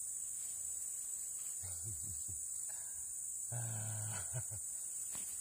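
Insects buzzing in a steady high drone, with a man's low wordless voice grunting or murmuring twice, about two seconds in and again around three and a half seconds, and a small click just after.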